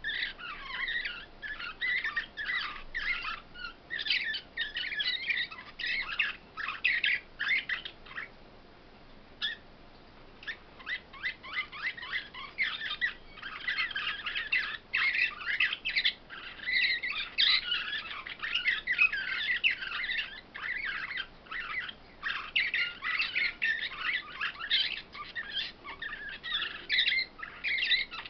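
Caged songbirds singing continuously in rapid, twittering chirped phrases. The song breaks off briefly about eight seconds in and resumes about two seconds later.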